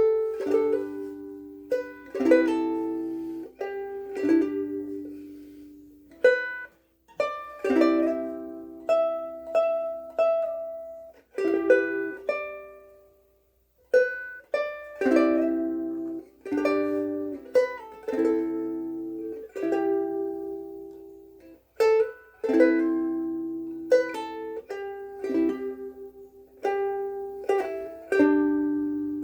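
Soprano ukulele strung with Aquila Sugar strings, playing a slow tune. Plucked chords and single notes ring out and fade, with short pauses between phrases.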